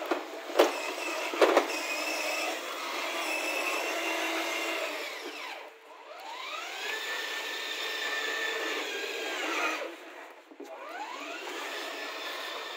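Electric drive motors and gearboxes of a 12 V kids' ride-on car whining as it drives. The whine rises in pitch as the car speeds up, holds, then falls as it slows, three times. Two sharp knocks come about half a second and a second and a half in.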